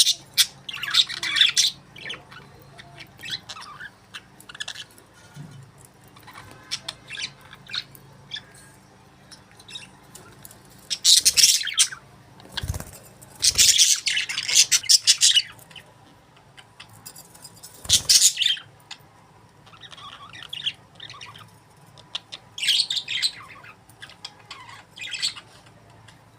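Budgerigars chirping and chattering in scattered bursts, with loud squawking flurries a little under halfway through and again about two-thirds through, and a few low thumps among them.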